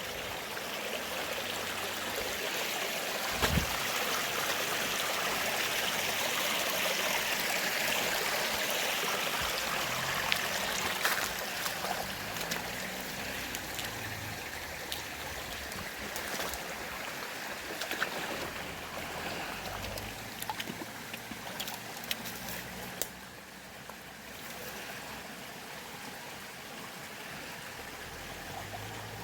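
Stream water flowing and trickling steadily, with a few faint clicks scattered through it.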